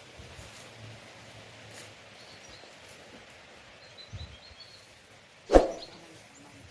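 Quiet outdoor background with faint, high bird chirps, then one short, loud animal call about five and a half seconds in.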